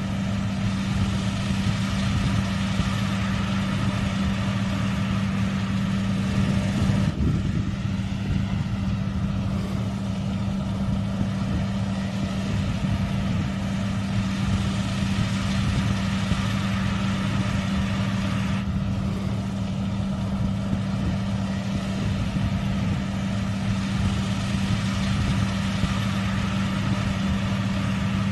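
Combine harvester's engine running steadily at a constant speed, with a steady low hum.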